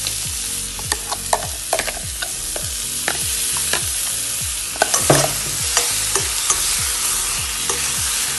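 Cauliflower florets and onions sizzling in hot oil in a steel kadai, with a steel spoon scraping and clinking against the pan as ground masala paste is added and stirred in. The clatter is thickest about five seconds in.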